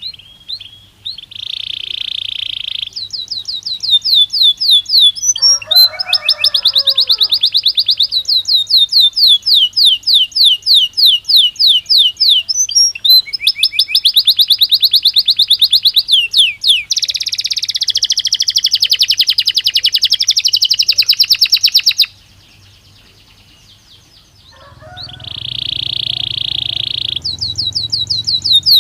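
Belgian canary singing: fast trills of repeated sweeping notes, several a second, alternating with steady buzzing rolls. A quiet pause of about two seconds comes near the end before the song starts again.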